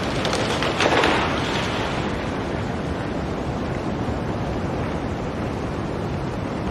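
Blizzard wind blowing steadily, with a stronger gust about a second in.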